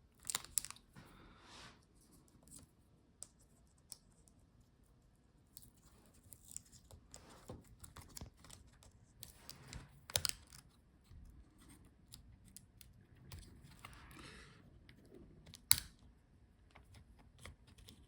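Scattered small clicks, taps and scrapes of hands working inside an opened laptop, handling cable connectors and the motherboard; a brief scraping rustle comes twice, and one sharper click stands out near the end.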